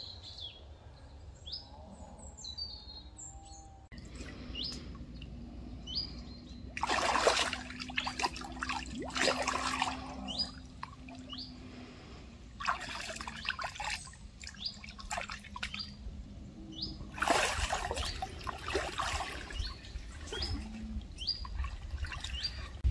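Lake water splashing and sloshing in the shallows as a large carp is held and released by hand, in several spells of splashing. Small birds chirp throughout.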